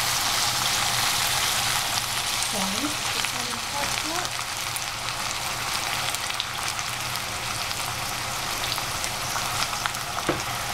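Vegetables frying in hot oil in a pan, a steady sizzle with scattered small crackles and pops, stirred now and then.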